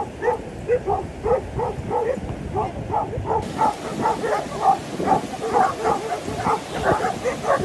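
A dog barking rapidly and without pause, about three short barks a second.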